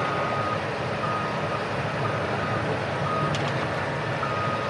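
Truck's backup alarm beeping about once a second as it reverses, over the steady running of its diesel engine.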